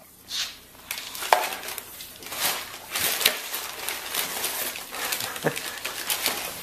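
Bulldog shifting about in a too-small cardboard box: irregular rustling, crinkling and scraping of the cardboard, with a brief squeak about a second in.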